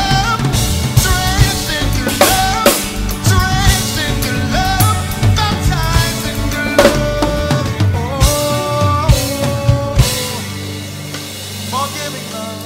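Drum kit played along to a recorded gospel song: kick, snare and cymbals over the song's gliding melody lines. About ten seconds in the drumming thins out and the music eases down in level as the song winds toward its end.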